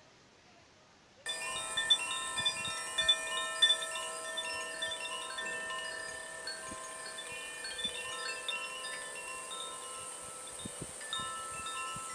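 Wind chimes ringing: many clear metal tones struck and overlapping, each ringing on, cutting in abruptly about a second in after near silence.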